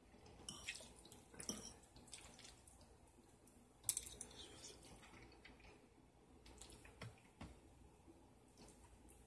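Quiet, sparse clicks and scrapes of a metal fork against a bowl as macaroni and cheese is scooped up, with soft chewing between them; the sharpest click comes about four seconds in.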